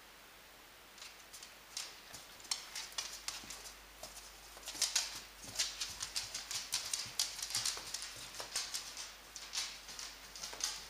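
Podenco dogs' claws clicking and tapping on a wooden floor as they move about, in quick irregular runs of clicks from about a second in.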